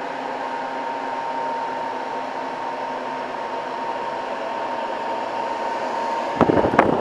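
Steady hum of the glasshouse's ventilation or air-handling fans, with a constant tone running through it. Near the end comes a brief clatter of the hanging plastic chain curtain as it is pushed aside and swings.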